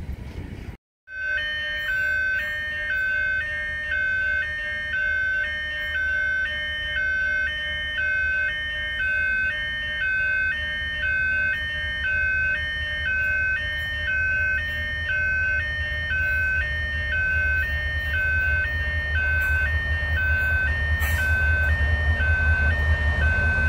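Railway level-crossing alarm sounding, an electronic tone pulsing about once a second. Under it, the low rumble of an approaching train grows louder near the end.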